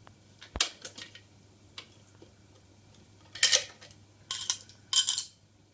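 Batteries being fitted into a plastic battery compartment: a sharp click about half a second in, then three short bursts of clicking and rattling in the second half.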